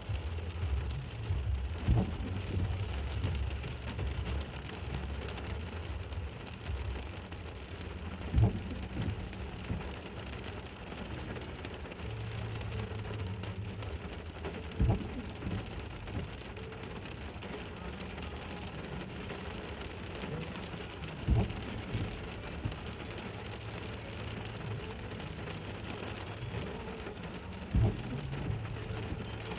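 Steady rain during a thunderstorm, with low rumbling through the first half. A sharp knock comes about every six and a half seconds.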